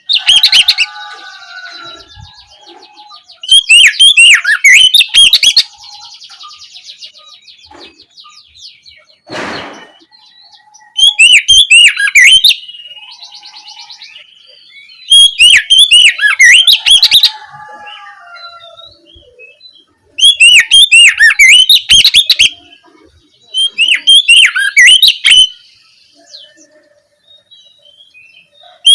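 Oriental magpie-robin (kacer) singing in loud, rapid phrases of about two seconds each, six times, with softer twittering between the phrases.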